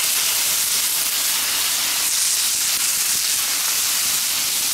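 Entrecôte steaks sizzling steadily on a hot wood-fired steel fire plate, freshly laid on to sear.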